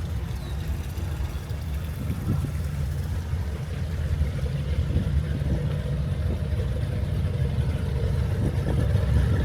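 An engine running steadily with a low rumble, growing somewhat louder toward the end.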